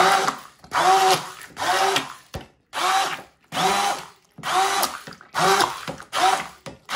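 Immersion (stick) blender pulsed in short bursts through thick curd cheese and egg yolks, about one and a half bursts a second. Each burst the motor whines up and then winds down before the next press.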